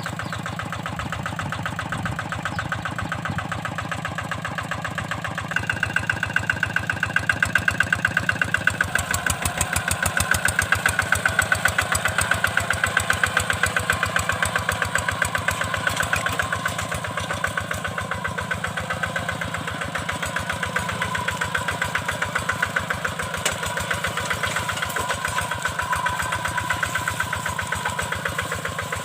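Kubota single-cylinder diesel engine of a two-wheel hand tractor running with a rapid, even chug. It grows louder about five seconds in and eases back somewhat after about sixteen seconds.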